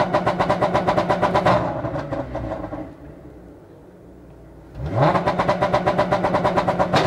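Audi SQ5's supercharged 3.0 TFSI V6, floored in park, held on the two-step launch-control rev limiter: the ignition cut chops the engine note into rapid popping, about ten pops a second. It drops back toward idle, then revs up and hits the limiter again about five seconds in.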